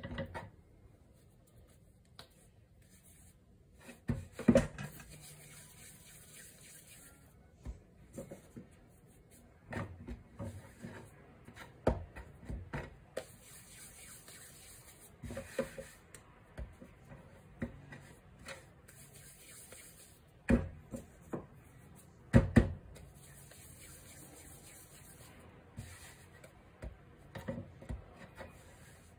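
Hands rolling and patting balls of mocha steamed-bun dough on a floured wooden cutting board: soft rubbing with irregular dull knocks on the board, the loudest about four seconds in and twice past the twenty-second mark.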